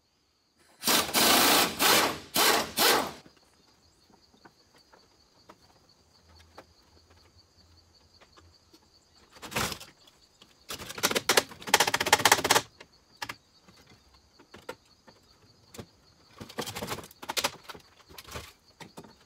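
Pneumatic impact wrench rattling in short bursts as it spins out bumper mounting bolts: three bursts about a second in, a longer run around eleven to twelve seconds, and a few weaker ones near the end.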